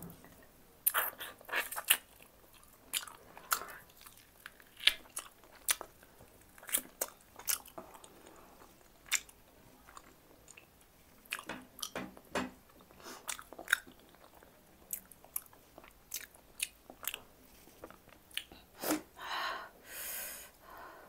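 Close-up mouth sounds of a person eating spicy bone marrow: wet smacks and sharp clicks at an irregular pace as she sucks the marrow from the bone and chews.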